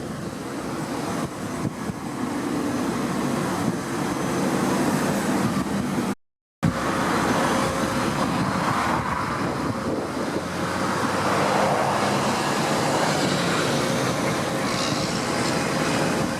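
Strong wind rushing and buffeting over the microphone, with a steady low hum underneath. The sound cuts out completely for a split second about six seconds in.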